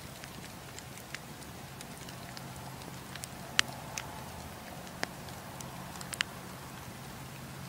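Wood campfire crackling: irregular sharp pops and snaps, the loudest a little past the middle, over a low steady hum.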